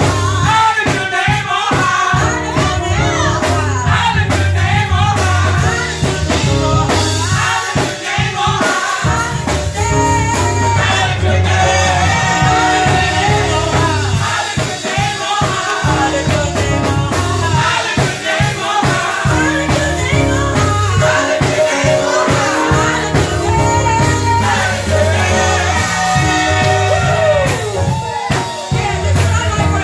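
Live gospel praise-and-worship singing: a team of several singers on microphones, men and women, over amplified instrumental backing with a steady beat and low bass notes.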